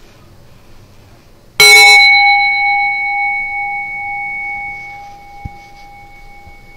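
Meditation bell struck once about one and a half seconds in, ringing with a low and a higher tone that fade slowly over several seconds; it is rung to mark the end of the meditation.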